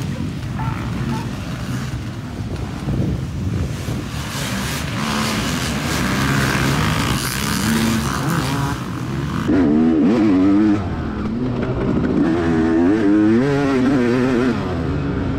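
Dirt bike engine revving hard as it races over the course, its pitch rising and falling with each gear and throttle change, loudest about ten seconds in.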